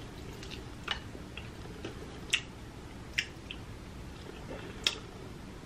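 Fingers picking meat from a boiled lobster tail: a few soft, wet squishes and four sharp little clicks spread through, the loudest about two seconds in.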